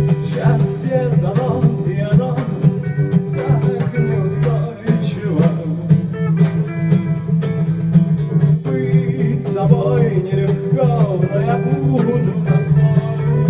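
A band playing a song: strummed guitar keeps a steady rhythm over a sustained bass line, with a voice singing a winding melody over it.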